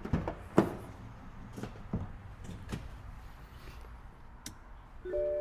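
A few scattered clicks and knocks from a car's door and interior controls being worked. Near the end a steady tone of several held notes sets in.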